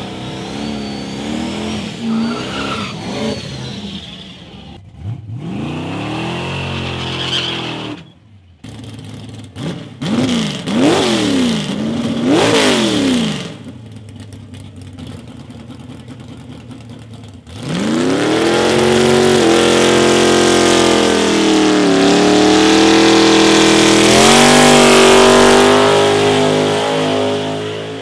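Drag cars doing burnouts: an engine revving with wheels spinning, then sharp throttle blips that rise and fall, a lower idle, and from about halfway through a long, loud burnout with the engine held high over tyre hiss and squeal for about nine seconds before it drops off.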